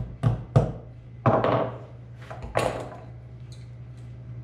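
Planter row-marker parts knocked and set down on a wooden workbench: two sharp knocks, then two longer clattering scrapes about a second apart.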